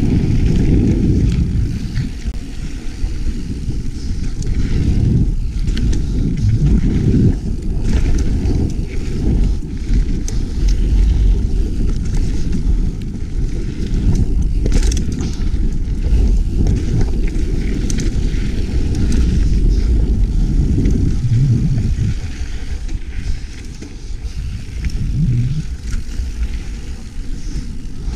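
Mountain bike riding dirt singletrack: a heavy, continuous low rumble of wind and tyres on the trail, with scattered rattles and clicks from the bike.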